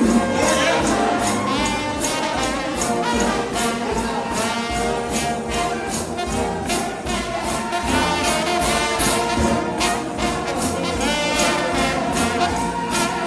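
Trombone-led gospel shout band playing a fast praise piece, many brass instruments in harmony over a steady drum beat.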